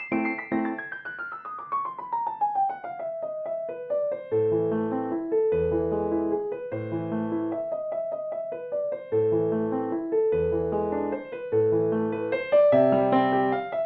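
Background piano music: a quick descending run of notes, then steady repeated chords over low bass notes.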